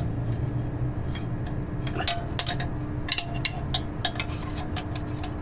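Metal wrench working a stubborn nut on the fan clutch of an engine cooling fan: irregular sharp metallic clicks and clinks, starting about two seconds in, over a steady low hum.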